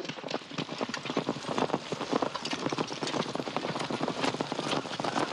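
Horses' hooves clopping on hard ground: a quick, irregular run of strikes that grows a little louder after about a second.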